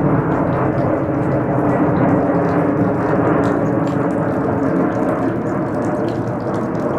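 Boeing 767 airliner's twin jet engines passing overhead on approach, a steady loud jet noise with a low hum.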